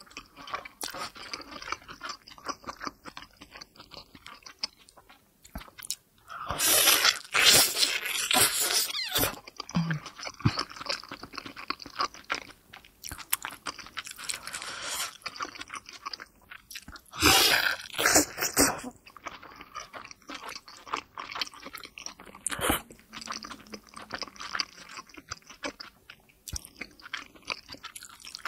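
Close-miked chewing and biting of a big steamed pork momo dumpling, a steady run of small wet crackles. There are louder, longer bursts about six seconds in and again around seventeen seconds.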